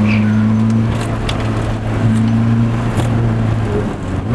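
Car engine running under way at a nearly steady pitch, with a few short sharp ticks over it.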